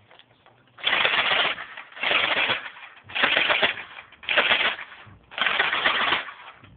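Battery-powered G36C airsoft gun firing five short bursts of rapid fire, about a second apart: a fast mechanical clatter in each burst.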